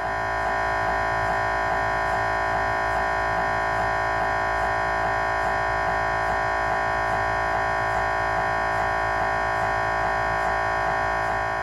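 GE Signa Excite 1.5T MRI scanner running an axial T1 spin-echo pulse sequence: a loud, steady, even buzzing drone with a fast, regular pulse. The gradient coils are vibrating as they switch.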